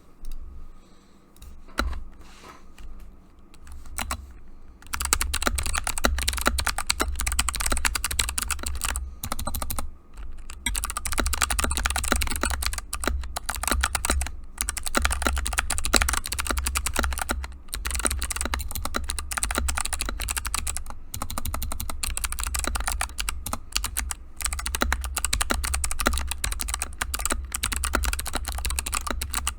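Typing on a 60% mechanical keyboard (Kemove Snowfox) fitted with Kailh Box Jade clicky switches, each keystroke a crisp click. A few scattered keypresses come first, then continuous fast typing from about five seconds in, broken by brief pauses.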